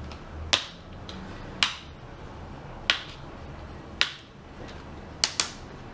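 Plastic laptop screen bezel being pried off by hand: its snap clips release one after another with sharp clicks, six in all, the last two close together.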